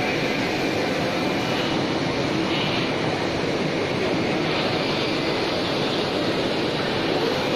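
Hybrid UV inkjet printer running mid-print, a steady mechanical rushing noise from the machine and its moving print carriage.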